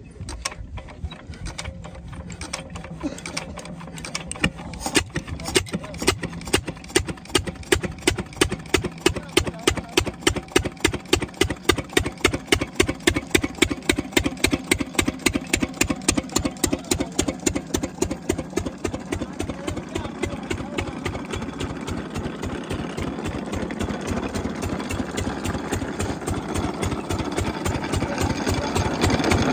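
A 12 HP single-cylinder Lister-type diesel engine belt-driving a water pump, hand-cranked and catching. A regular beat of firing strokes quickens and settles into a steady run that grows louder near the end.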